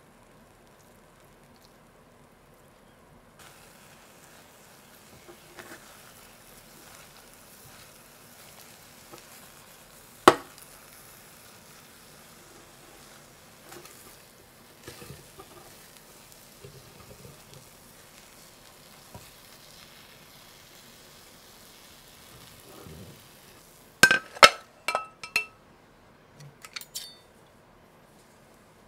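Butter and egg sizzling faintly in a nonstick frying pan as a crab-meat omelette cooks, with a single sharp clack about a third of the way through. Near the end comes a quick run of loud, ringing clinks of metal against crockery as the omelette is turned out of the pan onto a ceramic plate.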